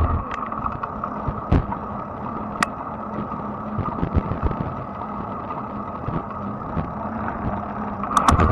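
Fat-tire electric bike in motion on pavement: a steady hum from the tires and drive, with scattered light clicks and rattles. It gets louder with a low rumble near the end.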